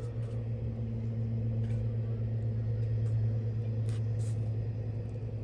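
Steady low engine hum running evenly, with two brief faint clicks about four seconds in.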